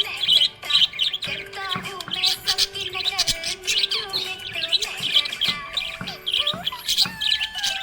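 Budgerigar chirping in a rapid run of short, high chirps, over background music with a held melody.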